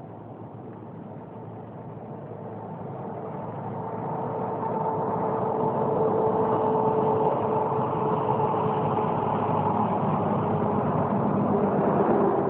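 An engine hum that swells over the first four or five seconds, then runs steadily with a low, even drone.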